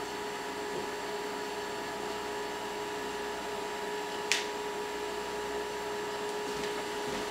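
A steady hum made of several fixed pitches, with one short sharp click about four seconds in.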